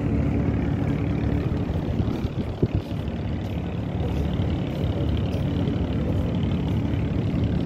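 Steady low engine drone with a constant hum, and one brief thump about two and a half seconds in.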